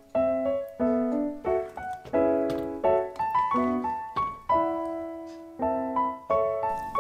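Background piano music: notes and chords struck one after another, each left to ring and fade.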